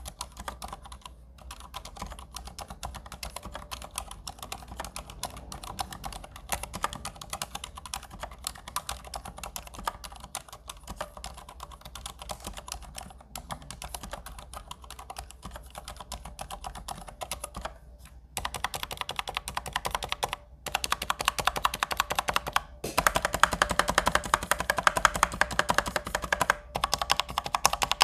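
Fast, continuous typing on a mechanical keyboard with Cherry MX Silent Red (low-noise linear) switches, with a few brief pauses. It gets louder in the last third.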